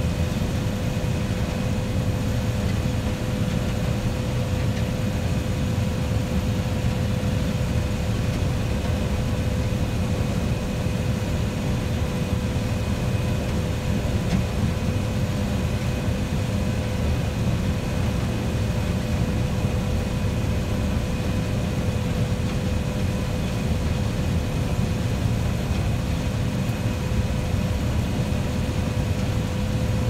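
Combine harvester harvesting corn, heard from inside the cab: a steady engine and machinery rumble with a constant whine over it.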